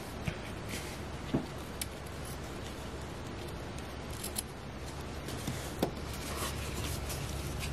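Scissors snipping through ribbon, trimming the tails of a bow: a few short sharp snips spaced apart, over a steady low hum.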